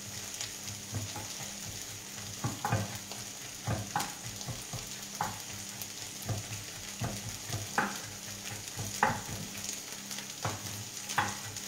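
Kitchen knife chopping parsley and garlic on a wooden cutting board, irregular knocks about once a second, over the steady sizzle of sliced artichokes frying in oil in a pan.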